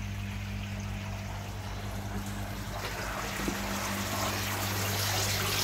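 Water trickling and pouring through a koi pond's filter system and return, over a steady low electrical hum. The water gets louder toward the end.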